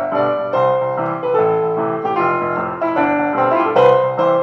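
Electronic keyboard played with a piano sound, a short melody of single notes over held chords, with a louder chord struck near the end.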